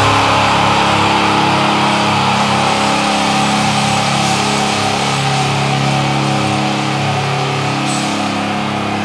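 Extreme metal music in a held, droning passage: a sustained chord rings with no drums, slowly fading.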